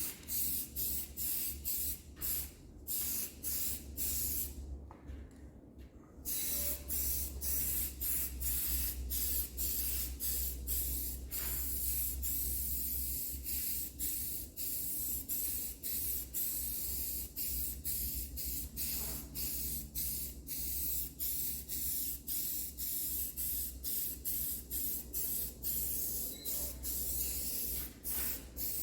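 Black paint being sprayed in quick short bursts, a hiss that pulses about twice a second, with a brief pause about five seconds in.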